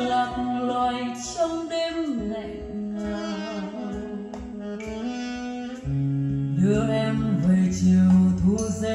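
A song with singing and instrumental backing, played from a CD in a Pioneer PD-HS7 CD player.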